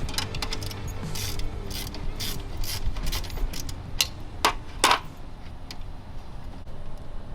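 Ratchet wrench working fasteners in short, irregular ratcheting strokes, stopping about five seconds in.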